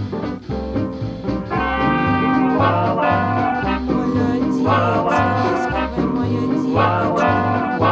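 Background swing music: brass horns (trombone and trumpet) playing over a steady walking bass beat.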